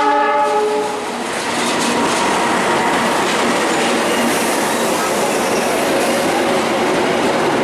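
A KAI CC206 diesel-electric locomotive's horn ends about a second in, then the passenger train runs past close by with the steady noise of its wheels on the rails.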